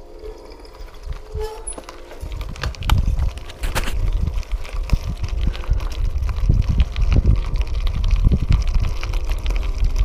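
Riding noise from a handlebar-mounted action camera on a mountain bike rolling over a gravel track: a rough low rumble of wind on the microphone, with the bike's tyres and frame rattling and knocking. It gets much louder about two and a half seconds in and stays loud.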